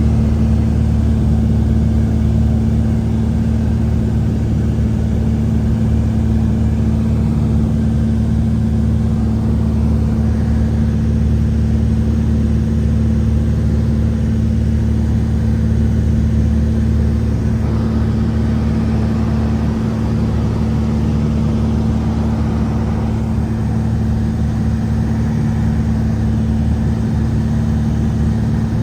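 An engine running steadily: a loud, even low hum with fixed tones that do not rise or fall.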